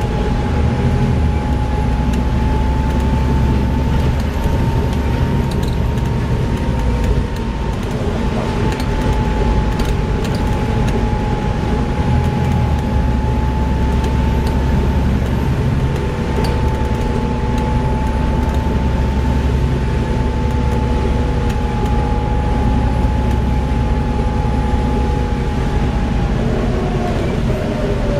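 Volvo B7TL double-decker bus's diesel engine and drivetrain running under way, a dense steady rumble with a thin whine that holds its pitch and drops away near the end.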